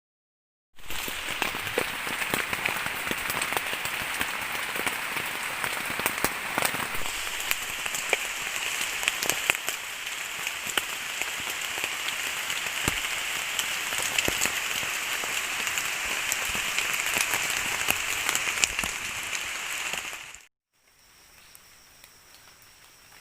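Heavy rain falling, a dense hiss with many sharp drop taps. It cuts off suddenly near the end, leaving a much quieter background with a faint steady high tone.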